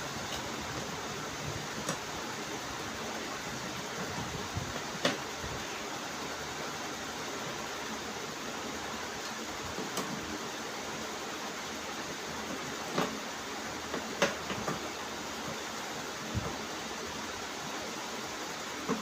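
Steady hiss, like a fan, with a few scattered light clicks and knocks, about seven in all.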